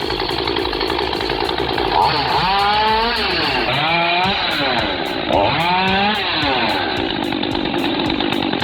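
Two-stroke chainsaw running at high revs. Its engine note dips and recovers several times as the chain bites into wood under load.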